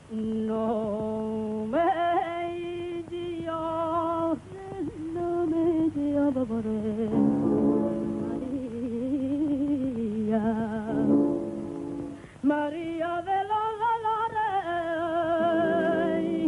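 Film song music: a steady held organ-like chord, then from about two seconds in a voice carries a slow melody in long, wavering notes with heavy vibrato that glide up and down, without clear words, leading into the song.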